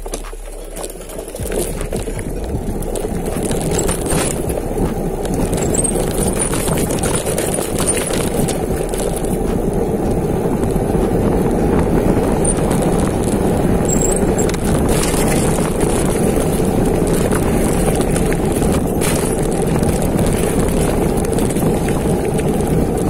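Mountain bike descending a dirt trail, heard from a helmet- or bar-mounted camera: a steady rush of wind on the microphone and tyre rumble that builds over the first couple of seconds as the bike picks up speed, with a few brief rattles and knocks from the bike.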